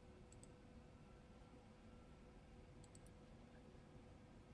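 Near silence with a faint room hum, broken by a few faint computer mouse clicks: a double click about half a second in and a short run of clicks around three seconds in.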